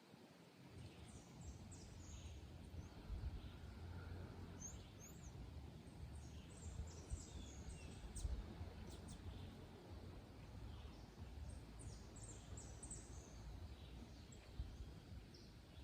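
Faint high, short bird chirps, many quick calls scattered throughout, over a low steady rumble.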